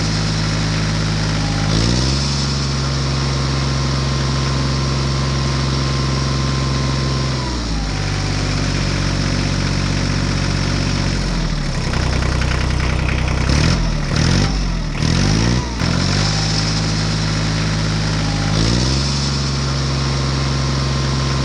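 A tractor-style engine running and revving: the pitch steps up, settles, drops back, then rises and falls quickly several times near the middle before climbing again near the end.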